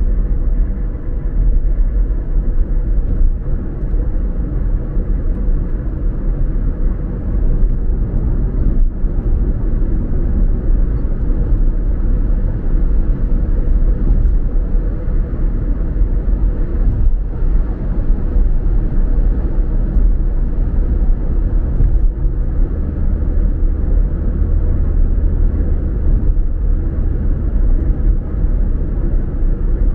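A car driving on the road: a steady low rumble of tyre and engine noise with a faint steady hum, and a few faint brief thuds.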